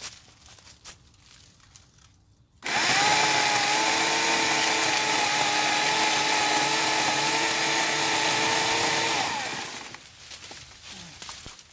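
Portland 14-inch electric chainsaw with a 9-amp motor switching on about two and a half seconds in and running at a steady high whine for about seven seconds while cutting through a thin tree trunk. It then winds down quickly.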